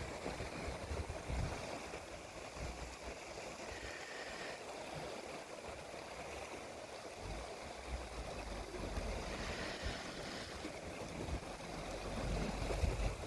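Wind buffeting the microphone in low gusts, strongest near the start and again in the second half, over a steady rush of sea and open air.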